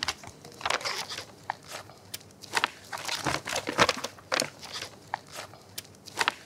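Sheets of paper rustling and crackling irregularly as they are taken out of a folder and handled.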